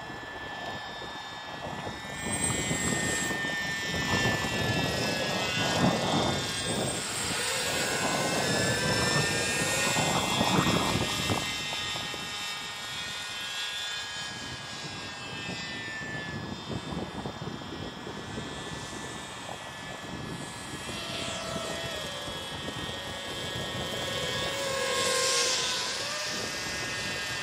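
Thunder Tiger Raptor radio-controlled model helicopter in flight: a steady high whine from its engine and rotor that bends slightly in pitch as it manoeuvres. It swells louder near the end as the helicopter passes close.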